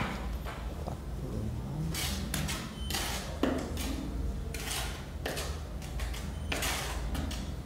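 Steel trowel scraping and spreading cement mortar across the back of a tile: a run of short, rasping scrapes about a second apart.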